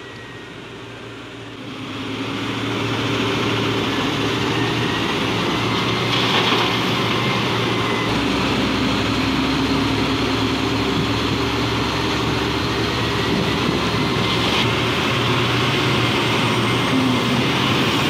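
Heavy mining machinery's big diesel engine running steadily, growing louder about two seconds in and then holding.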